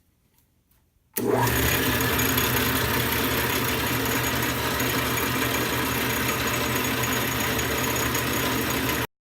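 Vintage Craftsman 6" x 18" metal lathe running steadily after years of sitting unused. The sound comes in at full level about a second in and cuts off sharply near the end.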